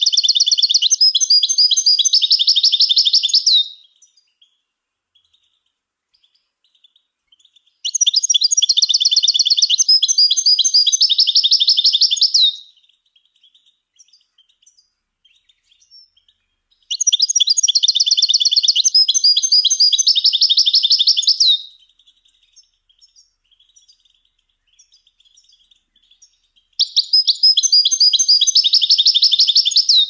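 European goldfinch singing: fast runs of high, quickly repeated notes in bouts of about four to five seconds, with pauses of about four seconds between them. One bout ends about three and a half seconds in, and three more follow, with faint short calls in the gaps.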